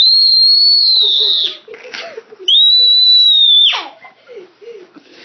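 A toddler lets out two long, very high-pitched squeals, each held on a steady pitch; the second one drops away in a quick downward slide.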